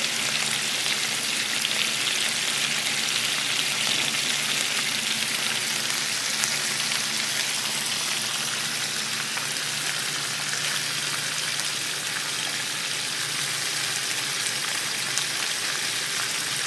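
Food sizzling steadily in a hot frying pan, an even crackling hiss with no breaks, over a steady low hum.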